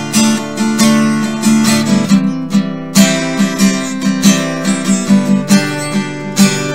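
Acoustic guitar strummed in a steady, even rhythm, with no singing over it.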